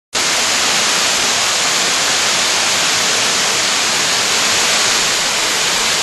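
Waterfall cascading down a rock face: a loud, steady rush of falling water, heavy in hiss.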